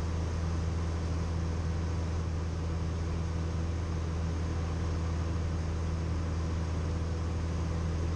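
Cessna 172M's four-cylinder Lycoming O-320 engine and propeller droning steadily, heard inside the cabin: a deep, even hum with a steady hiss over it.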